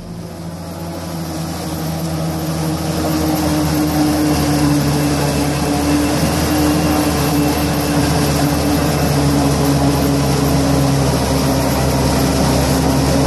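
Tractor engine under load driving a Kemper Champion 2200 single-row forage harvester as it chops maize: a steady, loud machine hum with a few held engine tones. It swells up over the first few seconds, then holds steady.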